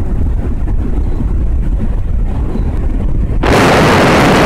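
Wind buffeting the camera microphone on a bicycle descending at about 52 km/h: a low rumble, then about three and a half seconds in a sudden, much louder rushing hiss that holds steady.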